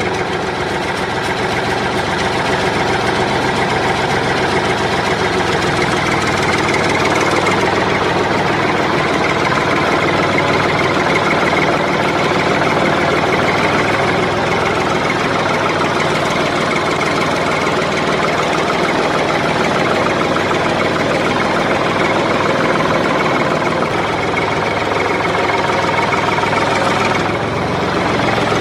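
Tractor engine running steadily at an even idle-like pace, a recorded engine sound laid over the pictures rather than coming from the toy itself.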